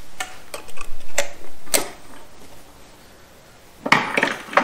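Hand tools and metal parts clinking and tapping against a TH350 transmission's internals during disassembly: a handful of sharp clicks in the first two seconds, then a quick cluster of clinks near the end.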